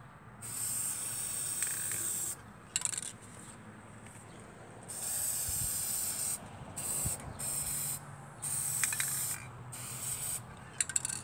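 Aerosol spray paint can spraying in about six bursts of hiss of a second or two each, with short gaps between and a few short clicks.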